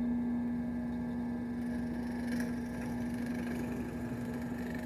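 Benchtop drill press running with a steady motor hum while its twist bit bores a starter hole through a wooden blank for a scroll-saw internal cut.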